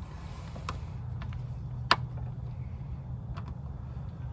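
A few light plastic clicks and taps as a cable is laid into a released plastic cable-channel clip along the door sill; the sharpest click comes about two seconds in. A steady low hum runs underneath.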